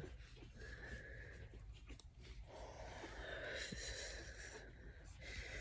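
A woman's faint, heavy, wheezy breathing, with one long breath swelling and fading in the middle; she has chest congestion.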